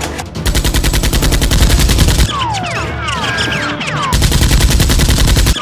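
Two long bursts of rapid automatic gunfire, a machine-gun sound effect. Between them come several high squeaks that fall in pitch.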